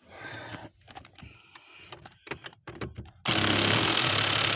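A few light clicks of tools and sockets being handled, then, about three seconds in, a handheld power tool starts spinning a socket on a steering-column bolt, running loud and steady.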